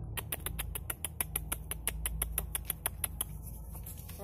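A rapid, even series of sharp clicks, about eight a second, starting just after the start and stopping after about three seconds.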